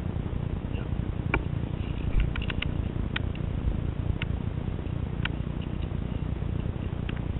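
Steady low rumble of wind and handling on a handheld camera's microphone, with a handful of light, sharp clicks scattered through, several of them close together about two and a half seconds in.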